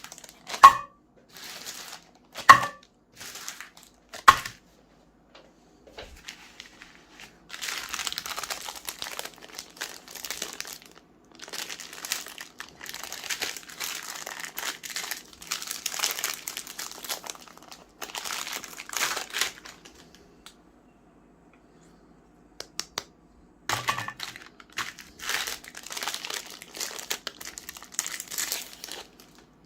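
Crinkling and crackling from close-up handling, in long stretches. There are three sharp knocks in the first few seconds and another at about 24 seconds.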